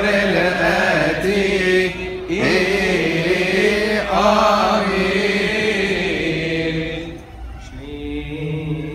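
Male clergy and deacons chanting a Coptic Orthodox liturgical hymn together into a microphone. About seven seconds in the group chant ends and a single voice carries on more quietly.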